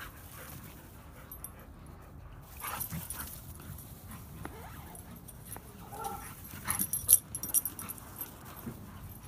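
Dogs playing on grass, with a short whine about six seconds in. A few sharp knocks just after seven seconds are the loudest sound.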